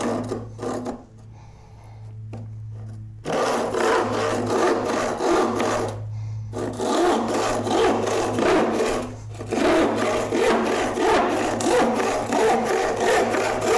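Crosscut hand saw cutting through a wooden board in steady back-and-forth strokes. After a few light strokes at the start the sawing goes quiet, then picks up again about three seconds in. It pauses briefly about six seconds in and then carries on until near the end.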